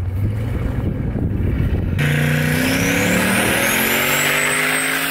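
A low rumble, then an abrupt change about two seconds in to a turbocharged LS V8 pickup accelerating hard, its engine note climbing slowly with a high turbo whistle rising over it. The turbo is still spooling up even though a hole in an intercooler pipe is leaking boost.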